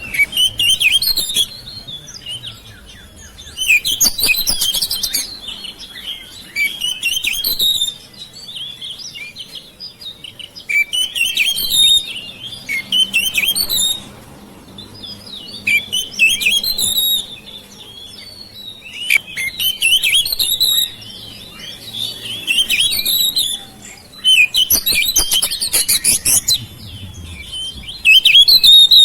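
Oriental magpie-robin singing high, quickly varied whistles and chirps. The song comes in bursts a second or two long, separated by short pauses, about nine phrases in all.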